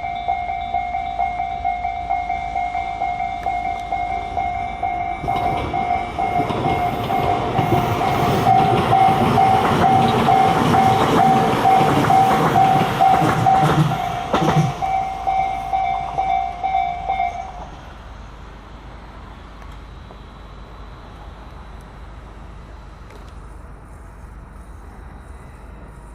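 Japanese railway level-crossing warning bell ringing in a fast, steady repeating ding while an electric train passes over the crossing, its wheels clicking over the rail joints for about ten seconds in the middle. The bell stops about two thirds of the way through, leaving a low steady background.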